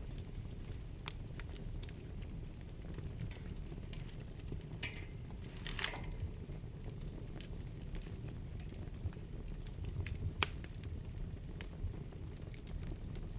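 Wood fire burning in a fireplace: a steady low rumble of flames with irregular crackles and pops from the burning logs, a brief hiss around the middle and a sharper pop near the end.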